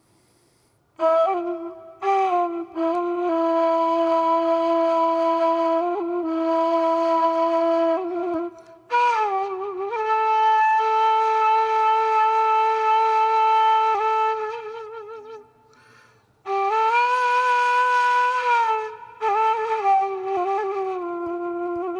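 Solo ney (end-blown reed flute) playing slow, long held notes with an airy tone. Wavering ornaments and slides join the notes. After a brief pause about two-thirds through, a higher phrase comes in and then sinks back to a low held note.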